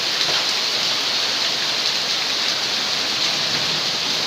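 Hail and heavy rain pelting down in a hailstorm, a dense, steady hiss of falling stones and water.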